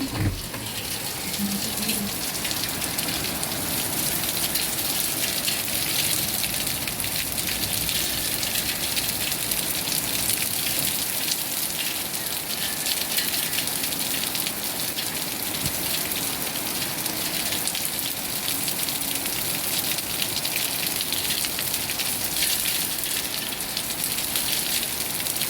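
Steady rain falling, a dense even hiss of raindrops that is strongest in the highs, with a short knock right at the start.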